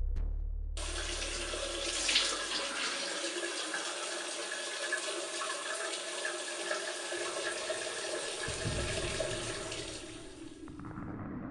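Water running from a shower. It starts abruptly about a second in, runs steadily and cuts off near the end.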